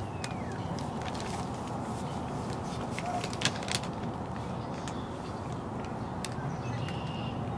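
Steady outdoor city background noise, a low even rumble, with scattered light clicks and taps.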